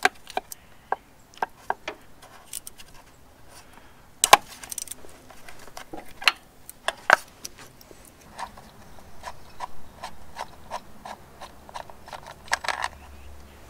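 Metal clicks and taps of a hand wrench working the bolts on the engine's timing belt cover, with one sharp knock about four seconds in. Later comes an even run of clicks, about three a second, as the tool is worked back and forth on a bolt.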